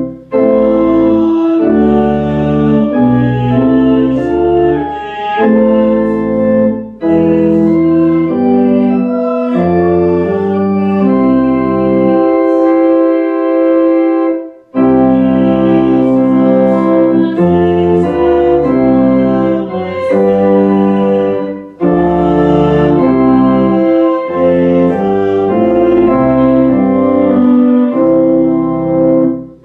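Church organ playing slow sustained chords over a deep bass line, in phrases about seven seconds long, each ending in a brief break.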